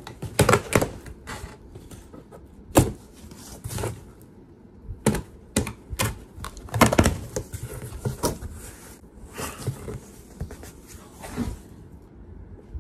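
Cardboard box being opened and rummaged through by hand: irregular clicks, knocks and rustles of cardboard flaps and packaged items being moved.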